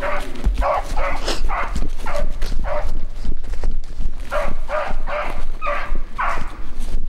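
Hunting dog barking over and over, about two barks a second, as it runs a rabbit's scent trail.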